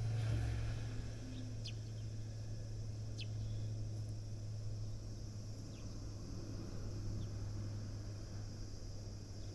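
Sparrows giving a few short, high chirps, spaced a second or more apart, over a steady low hum.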